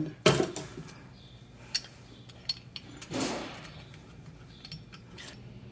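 Small metal clicks and clinks of Jaguar XK150 rear brake caliper handbrake parts (pad-carrier levers, pin and adjusting mechanism) being handled and fitted together by hand, the sharpest click right at the start, with a longer half-second noisy sound about three seconds in.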